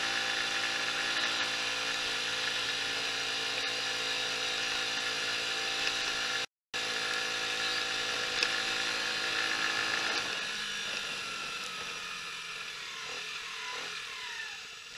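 Mash Fifty 50 cc motorcycle's small single-cylinder engine running at a steady cruising speed under the rider, with wind noise. About ten seconds in the throttle is closed and the engine note falls and quietens as the bike slows. The sound cuts out for a moment about six seconds in.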